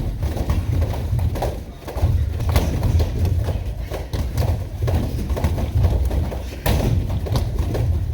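Quick, irregular thudding of feet and bodies on training mats, with many short knocks over a low rumble.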